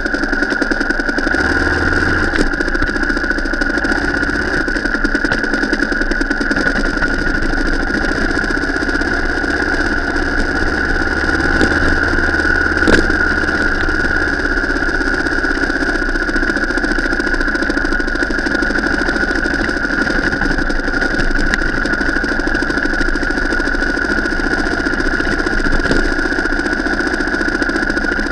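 Vehicle engine running steadily while driving off-road, with one short knock about halfway through.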